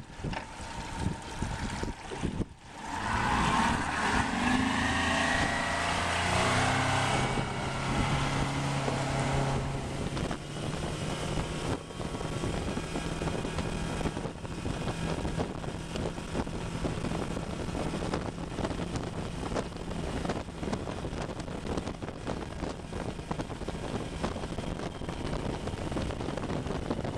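A Yamaha 150 four-stroke outboard on a center-console boat, throttled up about three seconds in, its pitch rising as the boat accelerates, then running steadily at speed. Wind buffets the microphone and water rushes along the hull throughout.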